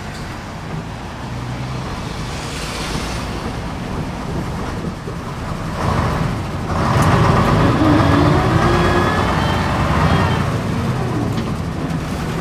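Diesel engine of a preserved AEC Renown double-decker bus running, heard from inside the bus. About six seconds in it gets louder and its note rises as the bus pulls away, easing off again near the end.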